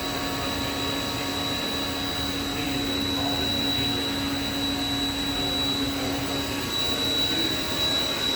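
Haas VF-3 CNC vertical machining center with its spindle running steadily at about 5,000 RPM, a steady high whine over the machine's hum; a lower hum drops out about six and a half seconds in. The spindle is running quietly.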